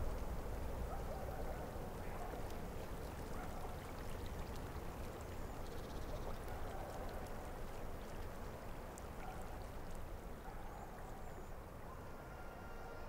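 Steady ambience of flowing water: a soft rushing hiss with scattered small drips and ticks, slowly fading.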